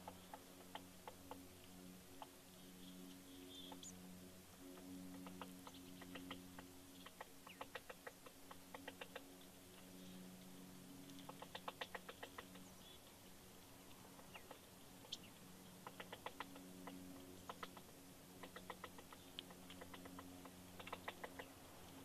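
Woodpecker hammering on a tree branch while foraging for insects: short runs of rapid, sharp taps, several a second, separated by pauses.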